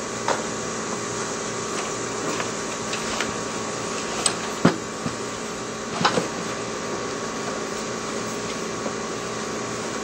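Steady mechanical hum, with a few light knocks and clicks over it; the loudest knock comes about four and a half seconds in, and two close together about six seconds in.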